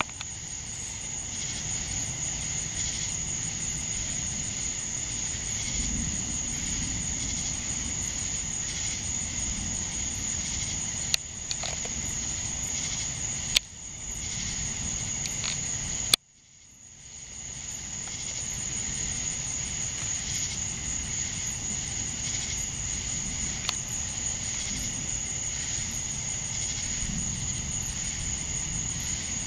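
Night insects chirping in a steady, high chorus. Three sharp clicks break in about halfway; after the last one the sound cuts out and fades back in over a couple of seconds.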